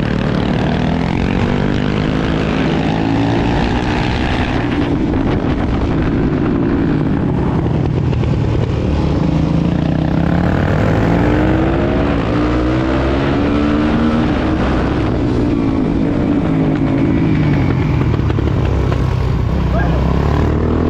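Suzuki DR-Z400SM supermoto's single-cylinder four-stroke engine at race pace. The engine note rises and falls again and again as the rider accelerates and backs off through the corners, over a rush of wind noise.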